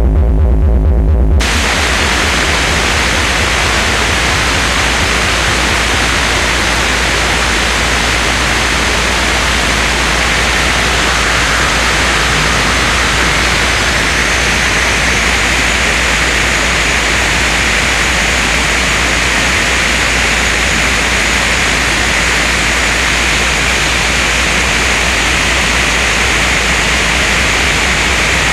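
Harsh noise music. A low electronic throb cuts off abruptly about a second in, and a dense, steady wall of static and hiss fills everything from deep bass to treble. A higher thin whine joins it about halfway through.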